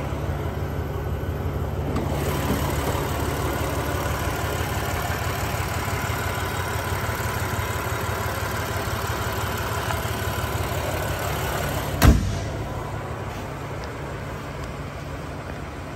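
BMW M4's 3.0-litre twin-turbo inline-six idling steadily. About three-quarters of the way through, one loud slam as the hood is shut.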